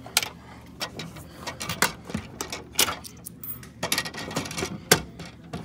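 Coins clinking and jingling as change is taken from a vending machine's coin-return cup and handled: a string of sharp, irregular clinks.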